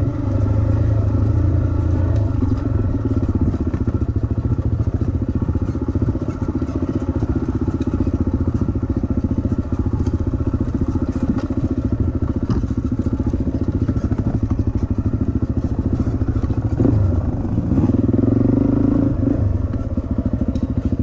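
Dirt bike engine running on a forest trail ride, heard from the bike itself, its revs rising briefly at the start and again shortly before the end.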